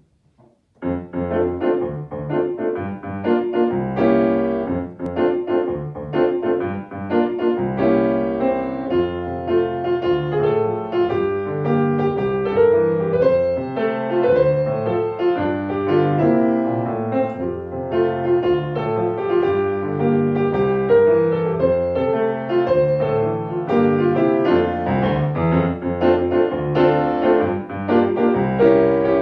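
Solo grand piano playing a swing-style piece with a steady bass line under chords and melody, starting about a second in.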